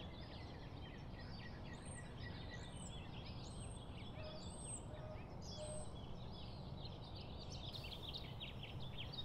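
Faint dawn chorus of small birds chirping and twittering, with a few high, thin calls repeated in the middle, over a steady low background rumble.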